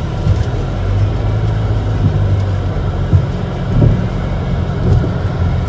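A car rolling slowly, heard from inside the cabin as a steady low rumble, with a few irregular knocks as the tyres cross the loose wooden planks of an old truss bridge deck.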